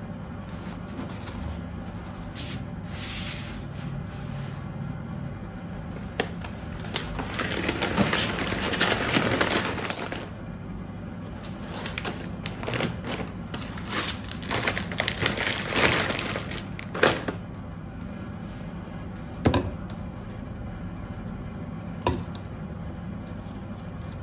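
Plastic snack packets crinkling and rustling as they are handled and stood up on a plastic shelf rack, in two long spells. A few sharp knocks follow later as items are set down on the rack.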